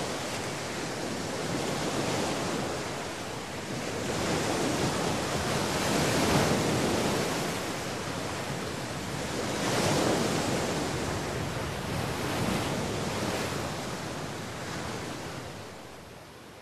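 Sea surf: waves breaking and washing, swelling and ebbing every few seconds, then fading down near the end.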